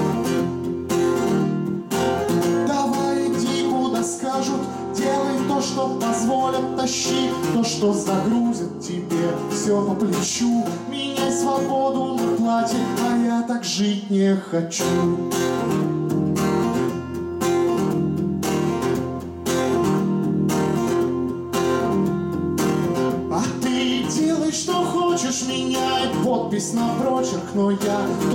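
A man singing a song while strumming a capoed steel-string acoustic guitar in a steady rhythm.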